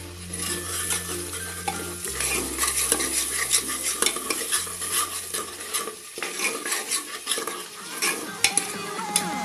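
Steel ladle stirring and scraping through masala frying in an aluminium pressure cooker, with a hiss of sizzling and repeated clinks of metal against the pot.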